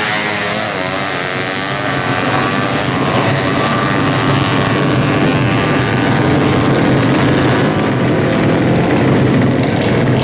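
Drag-racing motorcycle engines running loudly at high revs, several engine pitches overlapping, with gliding pitches near the start.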